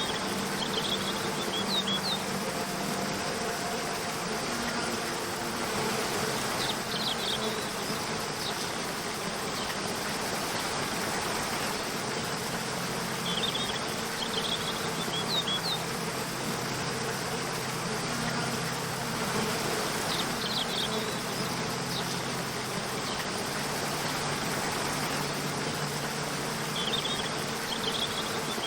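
Steady rushing of a waterfall, with soft sustained low music tones underneath and short clusters of high chirps that come back about every six to seven seconds.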